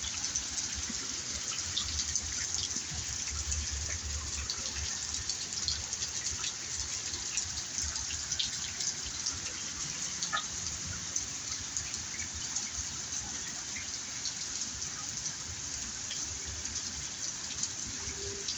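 Steady rain falling, a continuous hiss dotted with sharp little drop splashes.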